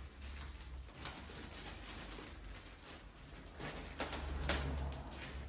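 Rustling and crinkling of a plastic flower sleeve, with a few soft knocks as potted poinsettias are handled on a tile floor. The loudest crackles come about four seconds in.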